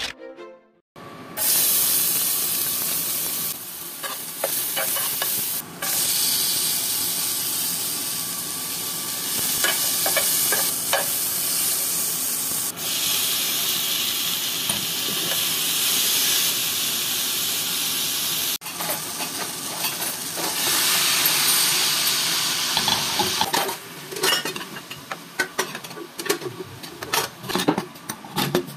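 Onion, garlic and tomato sizzling in hot oil in a frying pan, starting about a second in, with a spatula stirring. Near the end the sizzle drops and short clicks and scrapes of stirring take over as chicken pieces are turned in the pan.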